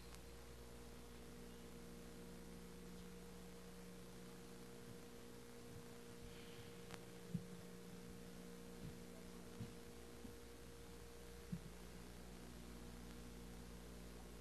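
Low, steady electrical-type hum at near-silence level, with a handful of faint dull knocks in the second half.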